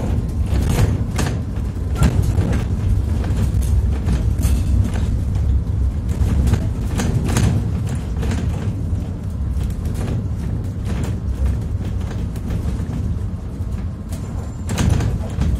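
Inside an Iveco Dekstra LF38 CNG minibus on the move: a steady low engine and road rumble, with frequent short clicks and rattles from the cabin.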